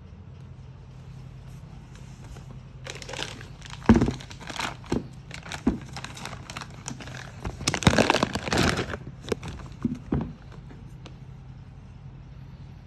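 Packaging being handled, crinkling and rustling for several seconds, with one sharp knock near the start of it and a low steady hum underneath.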